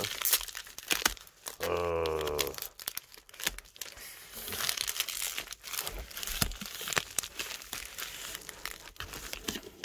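A USPS Priority Mail padded plastic envelope being torn open and crinkled by hand, with crackling handling noise throughout and a longer rip about four to six seconds in.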